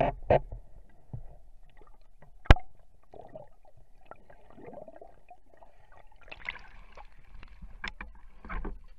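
Underwater sounds on a scuba dive: scattered sharp clicks and knocks, the loudest about two and a half seconds in, and a brief hiss about six seconds in.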